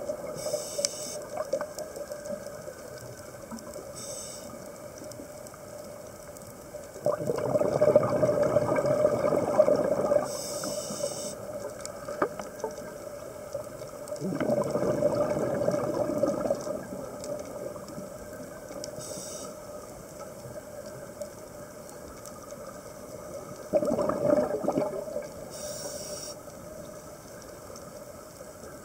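Scuba diver breathing through a regulator underwater: short hisses of inhaled air and three exhalations of bubbling exhaust lasting two to three seconds each.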